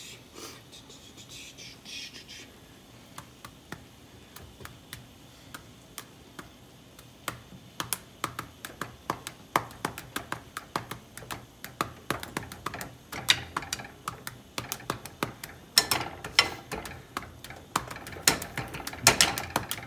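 Corn kernels frying in a hot pan, crackling and popping in quick irregular clicks, with a spoon now and then scraping the pan. The crackle starts sparse and gets thicker and louder about halfway through.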